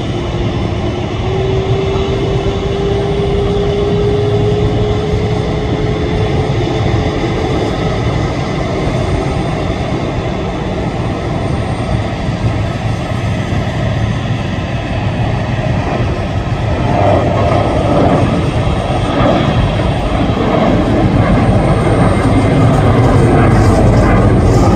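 Boeing 767-300ER's twin jet engines running at taxi power: a steady rushing noise with a low tone that rises slightly in pitch over the first several seconds, growing louder in the last third as the aircraft moves along.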